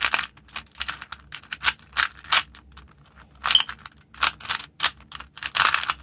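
A plastic 3x3 Rubik's Cube being scrambled by hand: its layers turn in quick, irregular clicks, several a second.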